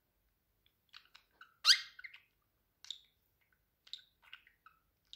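Budgerigar making scattered short chirps and squeaks, with one loud rising call about a second and a half in.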